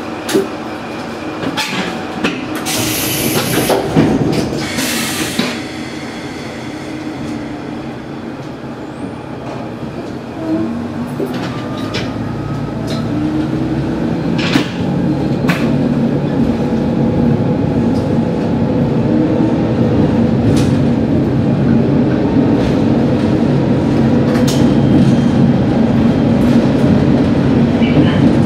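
Sanriku Railway diesel railcar pulling away from a station, heard from the cab: two bursts of hiss in the first few seconds, then the engine throttling up, rising in pitch and growing louder as the train gathers speed. Sharp clicks of the wheels over rail joints come through now and then.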